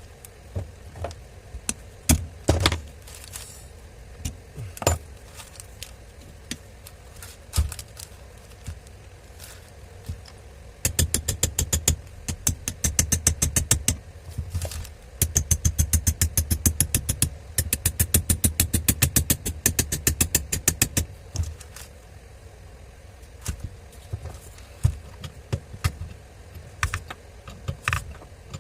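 Hands and tools working on a disassembled angle grinder: scattered metal knocks and clinks, with two runs of fast, even clicking lasting a few seconds each in the middle.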